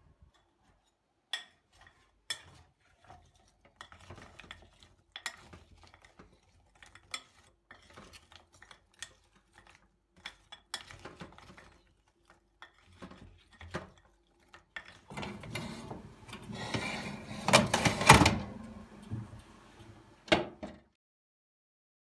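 Household handling sounds: scattered clicks, clinks and knocks of dishes and utensils being moved, with a louder stretch of scraping and rustling about three quarters of the way through.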